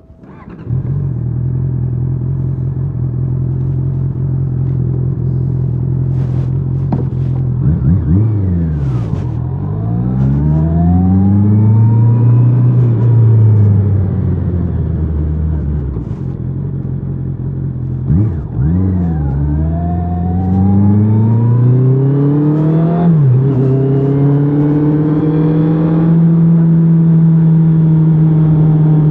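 2024 Honda CBR650R's inline-four engine with stock exhaust, coming in about a second in and running steadily. Twice, the revs rise and fall as the bike accelerates through the gears. Near the end it settles at a steady, higher engine note.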